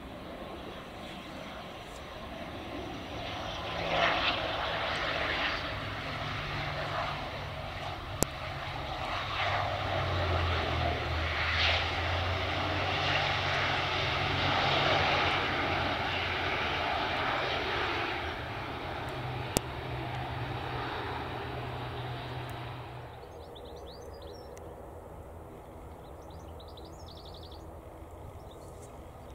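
ATR 72 turboprop landing and rolling out, its Pratt & Whitney PW127 engines and propellers making a steady drone of low tones under a broad rush of engine noise. The noise builds over the first few seconds, is loudest through the middle, and drops away suddenly about two thirds of the way in, leaving a quieter outdoor background.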